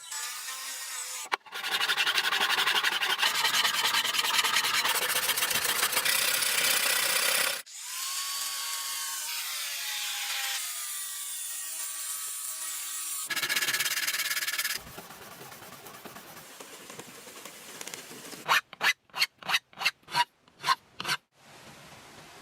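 A steel blade being shaped with abrasive tools: stretches of steady rasping and scraping, broken off in separate passes, then a run of about eight quick strokes near the end.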